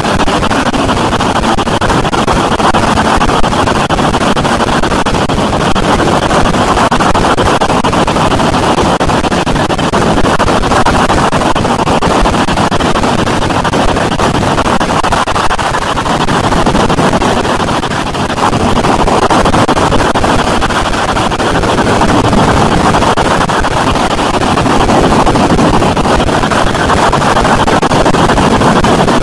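Harsh noise music: a loud, unbroken wall of distorted noise, strongest in the low and middle range, dipping briefly about eighteen seconds in.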